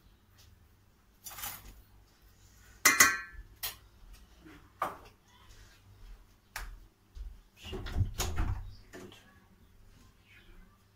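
Kitchen handling noise: scattered knocks and clinks of dishes and utensils on a counter. A sharp ringing clink comes about three seconds in, and heavier thuds follow around eight seconds.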